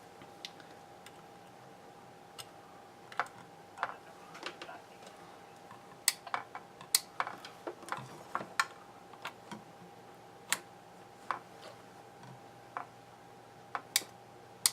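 Irregular small clicks and taps of clip leads and tools being handled on a workbench while test connectors are set up on a scanner's speaker, over a faint steady tone.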